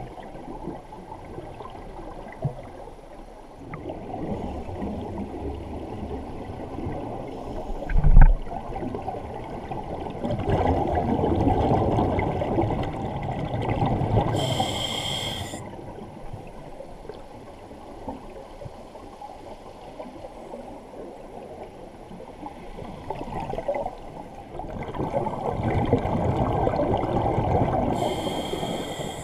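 Scuba diver breathing underwater through a regulator: two long swells of bubbling exhalation, each followed by a short high hiss of inhalation. A single sharp knock comes about eight seconds in.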